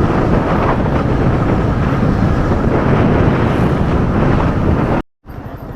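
Wind buffeting the microphone while riding a motorcycle, with the engine running underneath. About five seconds in the sound cuts off abruptly, then comes back quieter.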